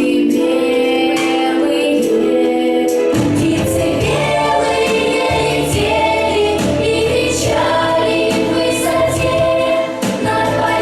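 A song with group singing, choir-like, over instrumental backing; a low bass part comes in about three seconds in.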